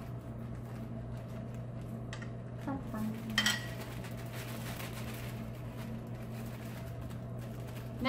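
Light handling of zip-top plastic bags and small plastic dishes: faint rustling and clicks over a steady low hum, with one brief louder rustle about three and a half seconds in.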